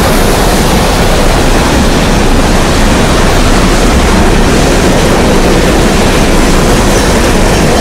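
Reading & Northern 2102, a Reading T-1 4-8-4 steam locomotive, passing close at track speed, followed by its train of empty hopper cars. The result is a loud, steady rush of wheels on rail.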